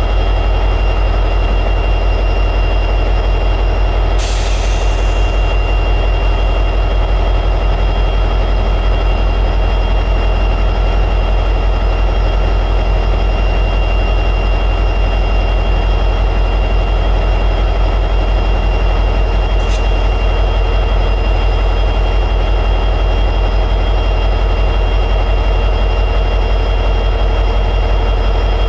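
EMD 710 diesel prime mover of an SD60E locomotive running steadily at high idle. A short hiss cuts in about four seconds in, and a single sharp click comes near the twenty-second mark.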